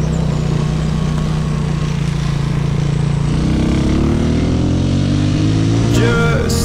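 Motorcycle engine running at a steady speed, then accelerating with its pitch climbing steadily from about halfway, dipping briefly near the end as at a gear change.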